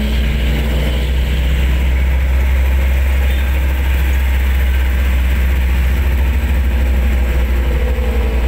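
Steady low rumble of wind on the microphone and road noise from a moving motorcycle at a constant speed.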